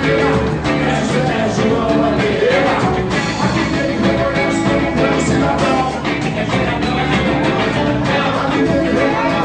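A band playing upbeat music with singing and a steady beat.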